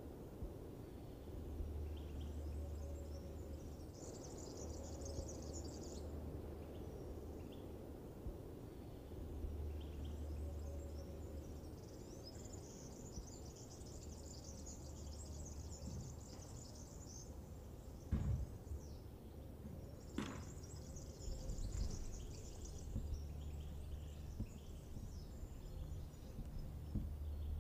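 Faint outdoor ambience: a low rumble that comes and goes in stretches, with patches of high chirping and two short knocks about two seconds apart.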